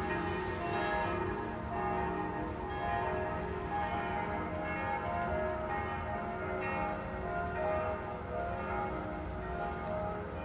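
Several church bells pealing at once, their strokes overlapping in a dense, continuous ringing.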